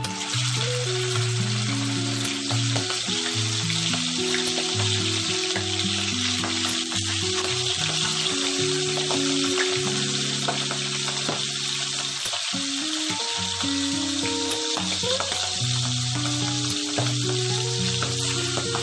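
Milkfish (bangus) steaks frying in hot oil in a pan, a steady sizzle, over background music of held low notes.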